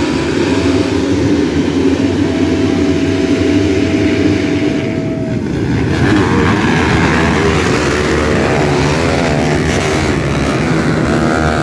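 A pack of 250cc four-stroke motocross bikes racing on a muddy track, their engines overlapping. From about six seconds in, as the pack comes through the turn and passes close, the engines rev up and down.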